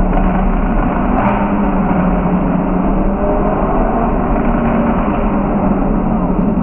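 Straight-piped Lamborghini engine and exhaust running steadily at a cruise, loud and echoing off the tunnel walls, heard from inside the cabin.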